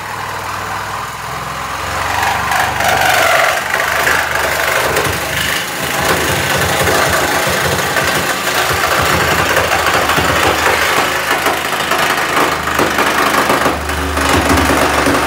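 Machinery running steadily in a workshop, with irregular clattering knocks; it grows louder about two seconds in.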